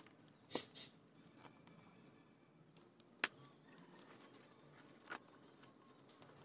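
A knife and hands working open a taped cardboard shipping roll: three short, sharp snaps of cardboard and tape, about half a second, three seconds and five seconds in, over faint background.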